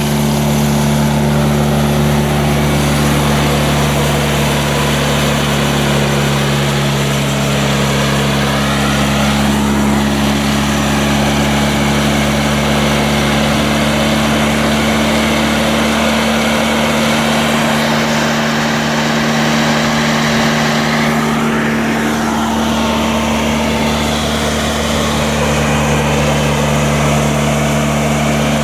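Homemade sawmill's engine, salvaged from a welder, running steadily to drive the saw blade and the hydraulic cart.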